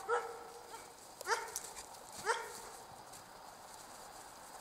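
Jämthund (Swedish Elkhound) dog giving three short, rising yips about a second apart in the first half, while the dogs jump around a man in the snow.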